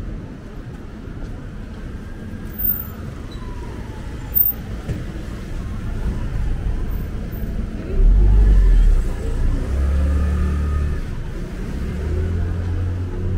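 Street traffic, with engines running and vehicles moving, and two short knocks in the first few seconds. About eight seconds in, a motor scooter passes close by with a loud, low engine rumble, and more low engine rumbles follow near the end.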